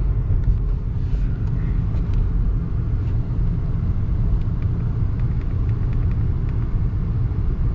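Chevy Cruze 1.4-litre turbo four-cylinder engine idling with a steady low rumble and a few faint scattered ticks. The engine has an intermittent misfire on cylinder 4 that the mechanic suspects comes from the coil pack.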